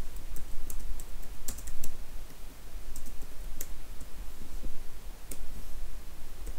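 Computer keyboard keys clicking as a short line of text is typed, the keystrokes irregular and thickest in the first two seconds, then sparse, over a steady low hum.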